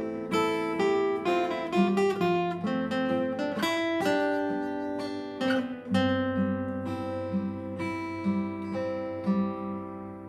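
Acoustic guitar playing an instrumental outro of picked notes, settling about six seconds in on a fuller low arpeggiated chord pattern that slowly fades out.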